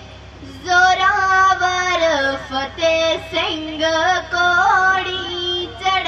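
A girl singing kavishri solo into a microphone, a Punjabi devotional verse sung in long held, sliding phrases, starting after a short pause.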